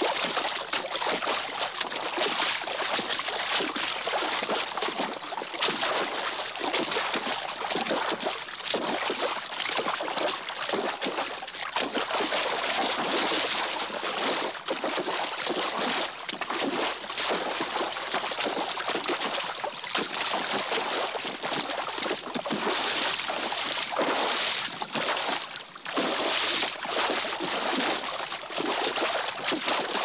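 An animal splashing in water, with a continuous churn of quick splashes and sloshes that barely pauses, easing briefly a couple of times.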